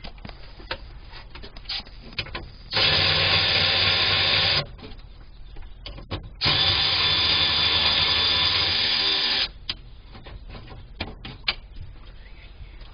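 Power drill running twice, about two seconds and then about three seconds, as it backs out the screws of the hose clamps on the fuel filler hoses, with light clicks of handling tools in between.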